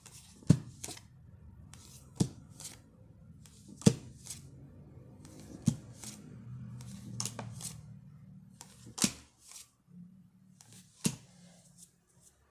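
Tarot cards being handled: drawn from the deck and laid out, with a crisp card snap or tap about every one to two seconds, six in all.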